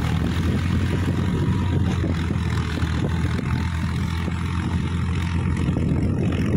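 Tractor diesel engine running steadily under load, with its rotary tiller churning through wet paddy mud.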